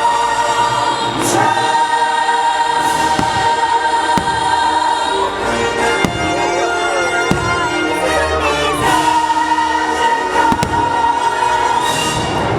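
A fireworks show soundtrack of a choir singing over an orchestra, played loud, with several sharp firework bangs going off through it.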